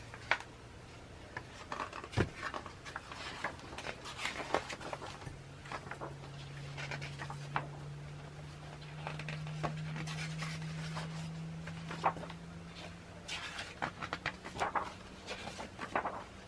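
Paper and card items being handled and shuffled, with scattered rustles and light taps. Under them runs a low steady hum that rises slightly in pitch in the middle.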